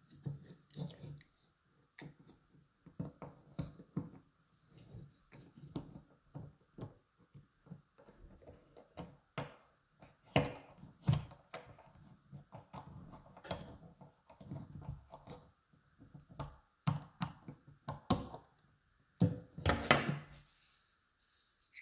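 A precision screwdriver turns the tiny screws of a Sola GO! magnetic pocket spirit level, making irregular small clicks and scrapes along with knocks of the plastic housing being handled on a wooden board. A denser, louder run of knocks comes near the end.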